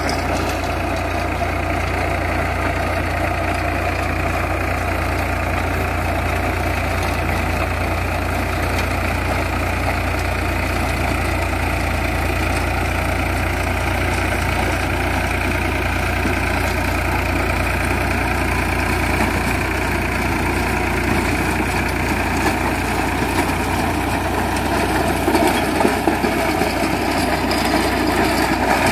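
Farmtrac 6045 45 hp tractor's diesel engine running steadily under load while pulling a rotary tiller, its blades churning through dry soil. The sound gets louder and more uneven near the end.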